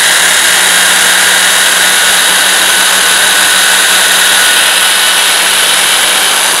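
Electric drill running steadily as its bit cuts down through a model rocket engine mount's centering ring, alongside the metal engine hook. Its motor gives a steady whine under the cutting noise.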